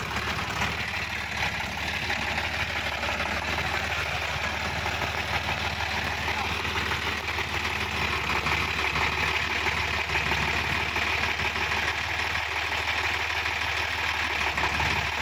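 Sonalika DI-50 RX tractor's diesel engine idling steadily.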